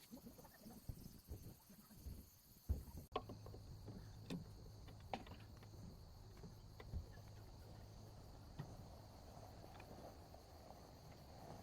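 Faint crickets chirping in a steady high trill, with scattered small clicks and knocks and a low steady hum after a sudden change about three seconds in.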